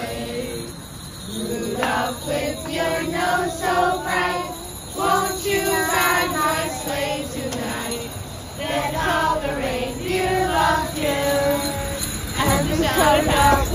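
A group of children singing a Christmas carol together in sustained, melodic phrases.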